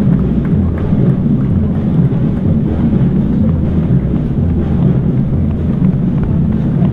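Low, steady rumble of wind buffeting and jostling on a GoPro Hero 5 action camera carried by a running person.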